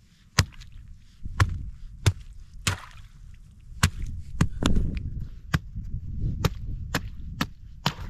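A hand-held rock striking the ice of a small frozen pond, about a dozen sharp knocks at uneven intervals of roughly half a second to a second, bashing a hole through the ice to reach the water.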